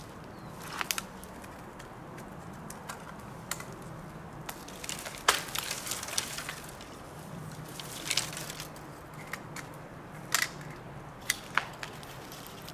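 Dead saplings being pushed over and dragged through dry brush: twigs and branches cracking and snapping in irregular sharp cracks, the loudest about five seconds in.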